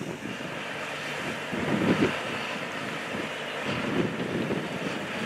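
Wind buffeting the microphone in irregular gusts over a steady hiss of highway traffic.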